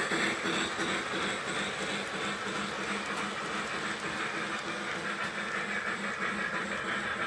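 Lionel Polar Express model train running on metal track: a steady rolling rumble of wheels with motor hum and faint clicks as it passes.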